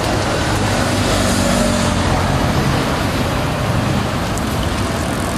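City bus passing close by with its engine running, over steady street traffic noise; cars follow it through the intersection.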